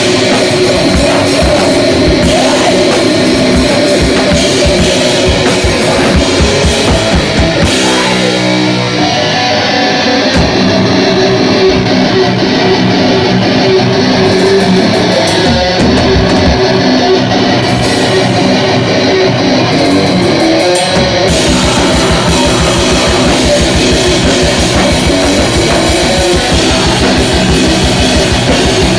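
A live rock band playing loud: electric guitar over a drum kit. About eight seconds in the cymbals drop out, leaving mostly guitar. The full kit comes back in around 21 seconds with a fast, driving beat.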